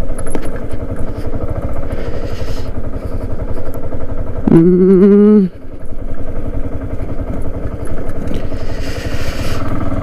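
Yamaha R15's single-cylinder engine running steadily as the motorcycle rides along a muddy dirt track. A person's brief drawn-out vocal sound about halfway through.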